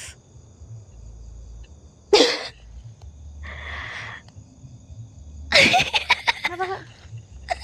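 A person's short non-speech vocal outbursts: a sharp cry with a falling pitch about two seconds in, a breathy hiss near four seconds, then a louder broken, stuttering cry with ragged breaths from about five and a half seconds. Under them runs the steady high chirring of night insects.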